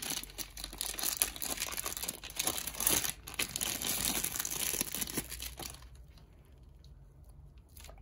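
Thin clear plastic packaging bag crinkling and tearing as it is pulled open by hand; the crinkling dies down about six seconds in.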